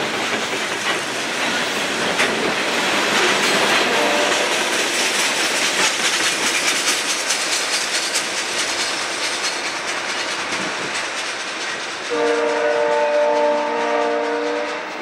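Freight train rolling past and pulling away: steel wheels clacking over the rail joints under a dense steady rumble of cars. About twelve seconds in, the locomotive up ahead sounds its multi-chime air horn as one chord held for about three seconds.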